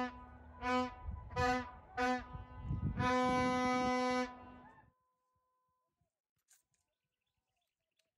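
Hunting horn blown on one steady note: three short blasts, then a long blast that stops about four seconds in.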